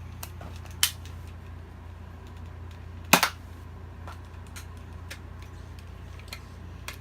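X-Shot Bug Attack toy dart blaster being worked: a click under a second in, then a sharp double snap of the mechanism about three seconds in, with a few faint ticks around it.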